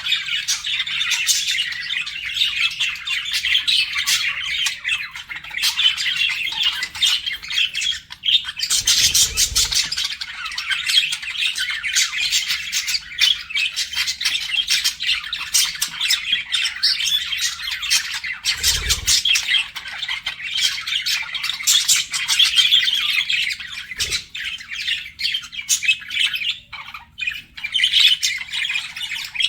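A flock of budgerigars chattering and warbling continuously, with quick chirps and squawks overlapping. A few soft low thumps come through at about 9, 19 and 24 seconds in.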